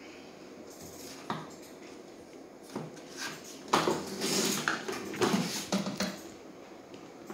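Hard plastic and metal parts of a children's battery-powered ride-on bike knocking and clattering as they are handled and fitted together: a single click a little after a second in and another near three seconds, then a busier run of knocks and scrapes from about four to six seconds.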